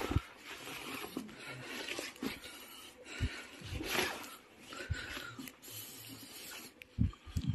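Irregular scuffing and scraping of someone clambering over loose rock in a cramped tunnel, with scattered low thumps of footfalls.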